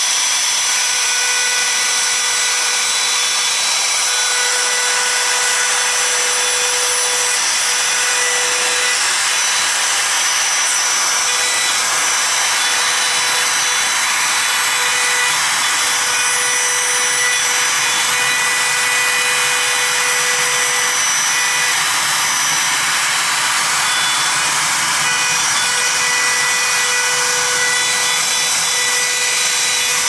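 Handheld router running at full speed with a steady high whine, its bit cutting wood as it is worked back and forth to clear out the waste of a door-hinge mortise.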